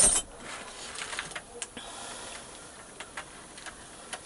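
Irregular light mechanical clicks and rattles, with a louder clatter at the start.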